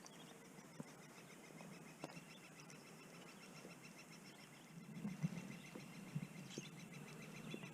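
A bird singing a long, even, rapid trill. The trill is faint, starts about a second and a half in and stops near the end, with a few soft knocks about five seconds in.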